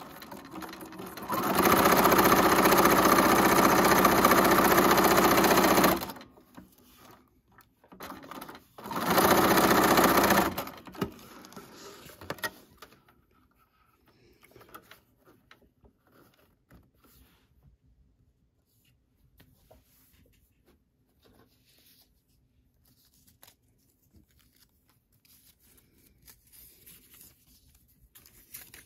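Bernina sewing machine stitching through paper in two runs: a steady run of about four seconds, then a shorter burst of stitching a few seconds later. After that, only faint scattered rustles and taps of paper being handled.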